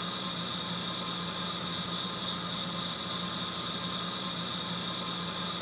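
Steady, unchanging hiss with a low hum underneath.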